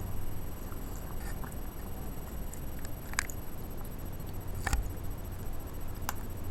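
Stray kittens eating, with three sharp crunches of chewing over a steady low hum.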